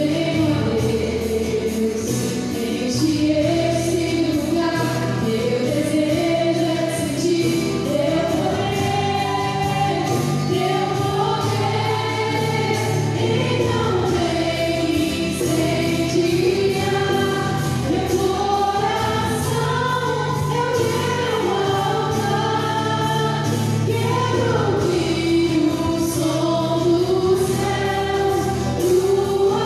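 Live worship band playing a Christian song: several male and female voices singing together over strummed acoustic guitar and electric guitar, continuous and steady in level.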